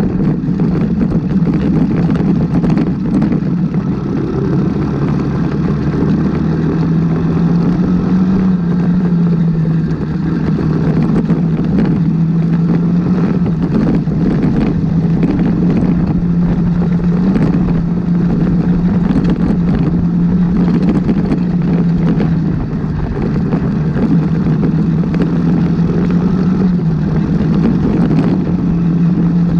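Off-road motorcycle engine running under way at a steady, even pitch with small rises and dips, over a constant rush of road and air noise.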